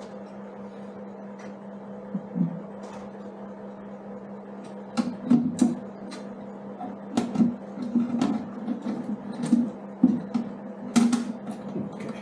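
Light metallic clicks and knocks from a toolbox mounting clamp and bolt being fitted by hand to a motorcycle's tubular pannier frame. They come in an irregular run from about five seconds in, over a steady low hum.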